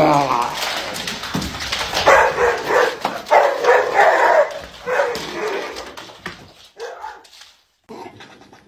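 A dog barking in a run of short calls, with some whining, then quieter after about five seconds.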